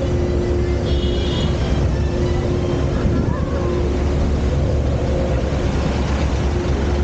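City street traffic: a steady low rumble of engines with a constant engine hum, a brief high chirp about a second in, and voices in the background.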